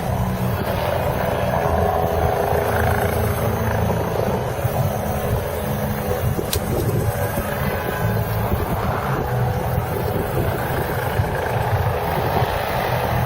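Helicopter engine and rotor running steadily, a continuous low rumble with a faint whine. There is a single brief click about halfway through.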